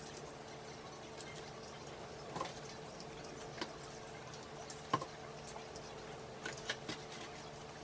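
A person chewing chicken McNuggets: scattered soft mouth clicks and smacks, a second or so apart, over a faint steady hum.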